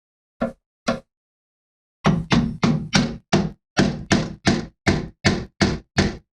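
Hard knocks: two about half a second apart, then after a pause a steady run of about a dozen, roughly three a second.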